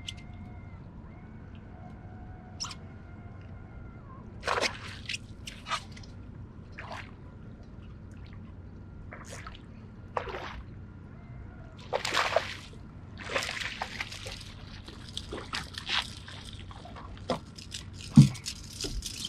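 Water splashing in short, irregular bursts as a small hooked fish is reeled in at the surface beside the boat, with a louder thump near the end.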